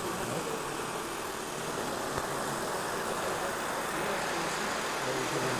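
The tiny 1.35 cc homemade four-stroke spark-ignition engine of a gauge 1 model SNCF Y9200 diesel shunter, running steadily as the locomotive laps the track.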